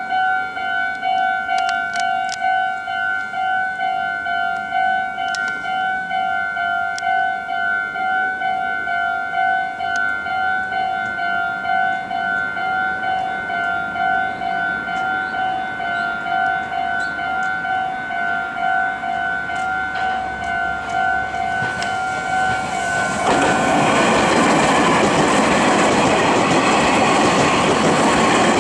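Japanese railway level-crossing warning bell ringing with a rapid, steady electronic ding. About two-thirds of the way in, a Meitetsu train passes over the crossing, and its loud wheel-and-rail noise drowns out the bell.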